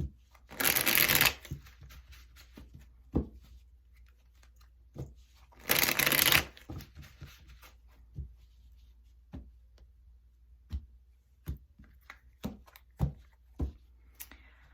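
A deck of tarot cards being shuffled in two brief bursts, about half a second in and again about six seconds in, followed by a string of single soft clicks as cards are laid down one by one.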